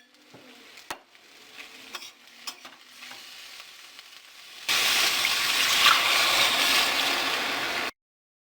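A few faint clicks and knocks of utensils, then about five seconds in a sudden loud sizzle of food frying in hot oil in a pan, which cuts off abruptly near the end.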